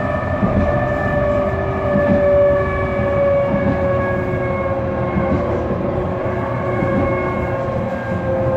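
Electric tram heard from inside the passenger cabin while running: a steady rumble of wheels on the rails under the whine of the traction motors. The whine falls slowly in pitch.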